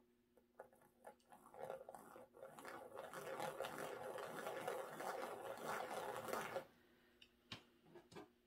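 Wooden skewer scratching in small circles through wet acrylic paint on the panel: a faint, rapid scratchy rasp that starts about a second and a half in and cuts off suddenly near the end, followed by a few light clicks.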